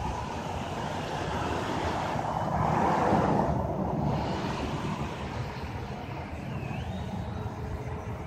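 Wind buffeting the microphone, swelling to a gust about three seconds in. Under it runs the faint steady whine of the RC foam plane's electric motor and propeller, flying high overhead.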